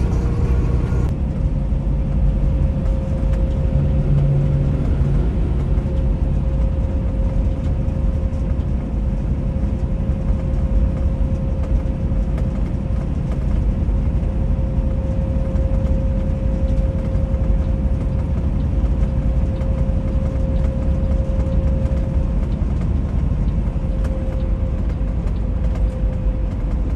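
Semi-truck's diesel engine and road noise heard from inside the cab: a steady low rumble with a faint constant whine above it.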